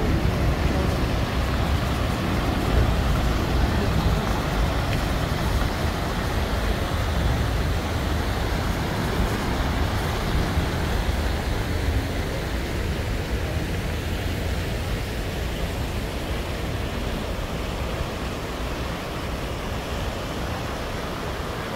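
Steady rush of splashing fountain water from many jets falling into a pool, slowly getting quieter toward the end.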